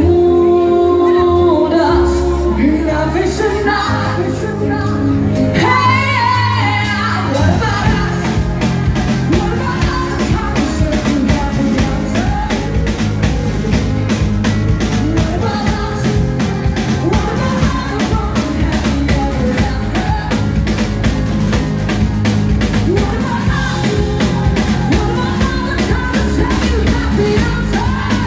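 Live band playing, with a woman singing into a microphone over bass and drums. The first several seconds hold long sustained notes; about eight seconds in a steady drum beat starts and carries on.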